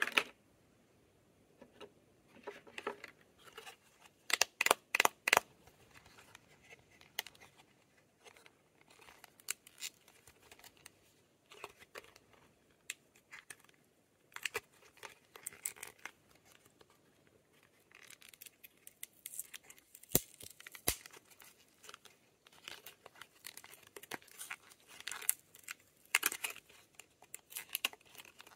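Lip balm packaging being opened and handled by hand: irregular crinkling and tearing with scattered sharp clicks and taps, loudest in a quick run of clicks about five seconds in.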